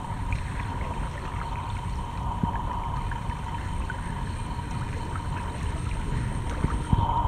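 Kayak paddling: the paddle blades dip and drag through calm river water, with water trickling and dripping off the blades and a few faint ticks, under a steady low rumble and a steady high tone.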